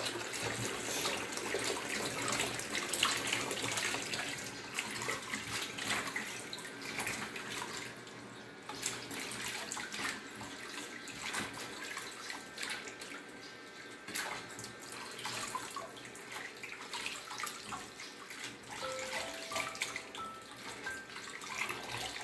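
Tap water running into a basin at a kitchen sink while hands rinse and swish leafy vegetables, with irregular splashing; the running water is a little louder in the first several seconds.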